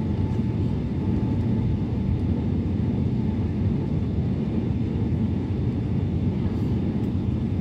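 Airliner cabin noise in flight: a steady low roar of the jet engines and rushing air, heard from inside the cabin.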